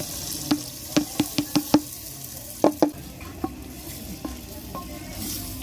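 Onions and tomatoes being stirred in a cooking pot with a faint frying sizzle. A spoon knocks against the pot, five quick knocks about a second in and two more shortly after.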